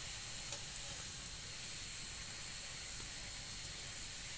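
Gujiya deep-frying in hot oil in a kadhai: a steady sizzle, with a few faint clicks.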